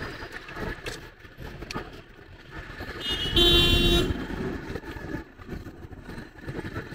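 Road and engine noise heard from inside a car in slow traffic. A vehicle horn sounds once, about three seconds in, in a single short blast under a second long, and this is the loudest sound.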